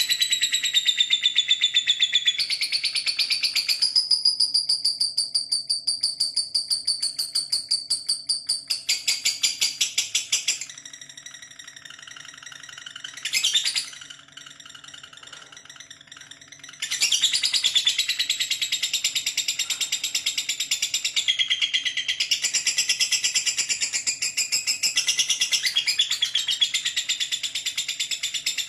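Lovebird singing a long 'ngekek': a fast, unbroken chatter of shrill high-pitched notes. It breaks off about ten seconds in, gives one short burst, and picks up again about six seconds later, running on without a pause.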